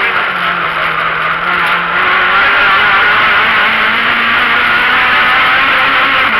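Rally car engine heard from inside the cabin as it drives a stage. The revs sit lower for about the first two seconds, then climb and hold, over a steady hiss of road and wind noise.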